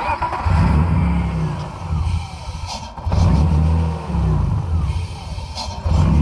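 BMW M50 inline-six engine starting up and then idling roughly, its speed sagging and recovering a couple of times. The rough idle comes with a new mass airflow sensor plugged in, which the owner suspects is a faulty cheap part.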